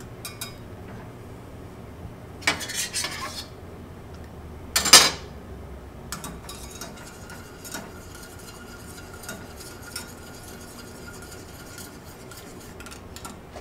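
Wire whisk stirring in a small stainless steel saucepan, its wires clicking against the pan as butter is whisked into a simmering red wine reduction to emulsify it. A short run of clinks comes a couple of seconds in, and a single louder metal clink about five seconds in, followed by lighter scattered ticks of the whisk.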